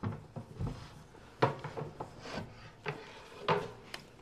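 Apollo HVLP turbine unit being slid out of a plywood wall cabinet and lifted down, its metal case knocking and scraping against the wood in a string of irregular knocks, with the unit switched off.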